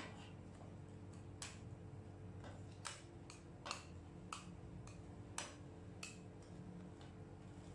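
Metal spatula edges tapping and scraping on the frozen steel plate of a rolled ice cream pan as a thin layer of ice cream is cut into strips: about ten sharp, irregular clicks over a steady low hum.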